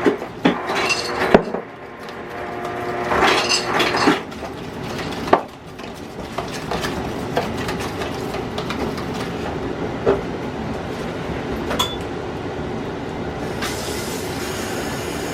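Kitchen utensil clinking and knocking against a bowl while an egg, water and hot sauce mixture is stirred, a few sharp clicks in the first several seconds. After that there is a steady rushing noise with small scattered ticks.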